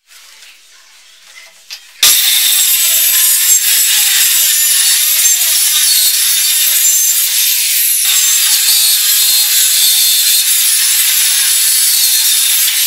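Small handheld electric circular saw cutting through a plywood sheet: a loud, high-pitched whine of the spinning blade in the wood that starts abruptly about two seconds in and then runs steadily.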